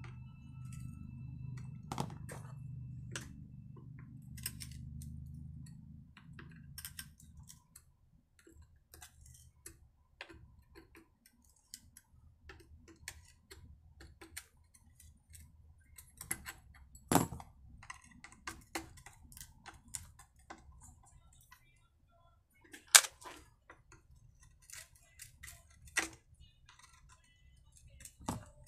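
Hand tools working on a chainsaw's plastic handle: scattered clicks, taps and clinks as a screwdriver and a T-handle wrench turn screws and are set down on the bench, with a few sharper clacks. A low steady hum runs under the first several seconds, then stops.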